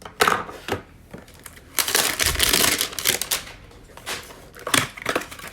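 A hanger box of trading cards being torn open by hand: cardboard tearing and packaging crinkling in a few short bursts, the longest and loudest near the middle.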